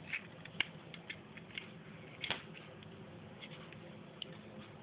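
Small scattered clicks and taps of a plastic junction box and thin metal bus wires being handled, the sharpest about half a second in and just after two seconds, over a faint steady hum.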